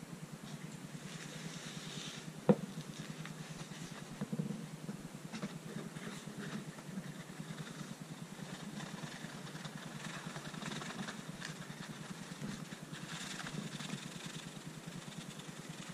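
Handling noises as powdered star composition is moved from a bowl into a plastic container with a paper sheet: a sharp click about two and a half seconds in, a few knocks around four seconds, and soft rustling of paper and sliding powder, loudest near the end. A steady low hum runs underneath.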